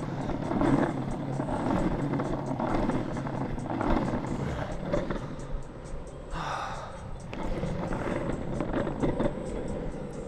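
Longboard wheels rolling over pavement: a steady, uneven rumble with a rapid scatter of clicks, and a brief hiss about six seconds in.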